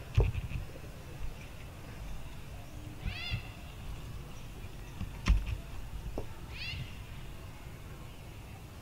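Two short, high-pitched squeaky calls from a young long-tailed macaque, each arching up and down in pitch, about three and a half seconds apart. Two sharp knocks, the loudest sounds, come just after the start and about five seconds in.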